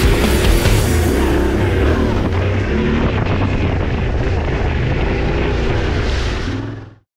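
Yamaha Ténéré 700 parallel-twin engine running under way, mixed with rock music; both fade out to silence near the end.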